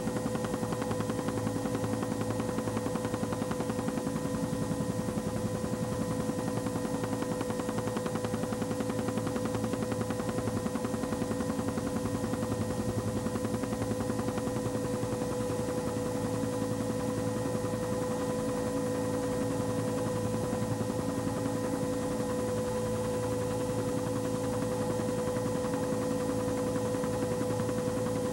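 Steady aircraft cabin noise: an engine drone with a constant whine and a fast, even pulsing, unchanging throughout.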